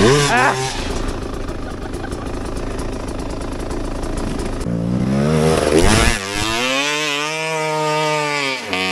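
Enduro dirt bike engine revving hard in repeated bursts on a climb attempt, the note rising and falling, then held, sagging and cutting off near the end. The rider blames the tyre's lack of grip.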